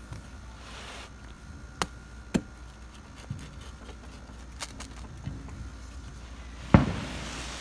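Crisp wood-fired pizza crust crackling as a knife cuts through it: a few sharp pops, then a louder crunch near the end. The crackle is the sign of a well-baked, crispy crust.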